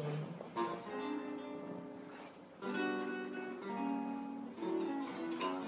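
Archtop jazz guitar playing chords: each chord is strummed and left to ring, with a new one struck every second or two and a dip between phrases.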